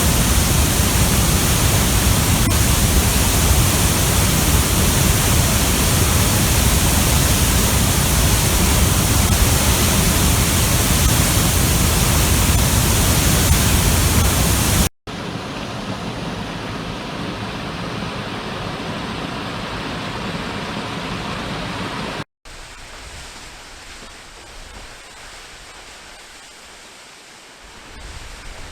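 Waterfalls: the steady rush of falling water, heard as three separate recordings cut together. The first is very loud and full, running about fifteen seconds; the next two are each quieter, with abrupt cuts about fifteen and twenty-two seconds in.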